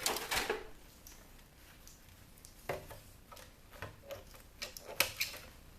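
Sharp, scattered clicks of wire cutters snipping a wire off a small circuit board, with the parts being handled: a cluster of clicks at the start, then single clicks, the loudest about five seconds in.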